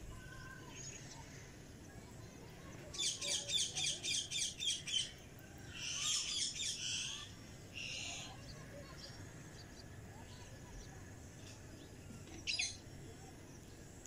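Cockatiel chirping: a quick run of about eight chirps, then a longer call and a short one, and a single chirp near the end.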